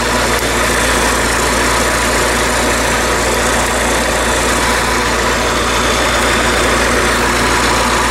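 Crop sprayer's engine idling steadily, a constant low hum with no changes in speed.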